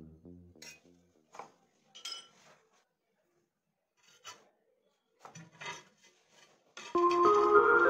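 Background music dies away, leaving a few faint, short scraping and rubbing sounds of hand work. The music starts again loudly near the end.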